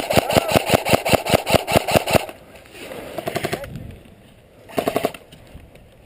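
Airsoft electric rifle firing on full auto: a long rapid burst of about two seconds with the motor and gearbox whine under the shots, then two shorter bursts.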